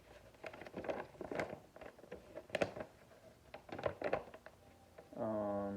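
Scattered rustling and clicking as packaging and a paper note are handled. Near the end a man gives a short hummed "mm".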